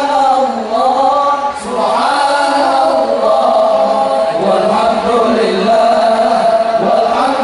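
Voices singing an Islamic devotional chant in long, held notes that slide slowly in pitch.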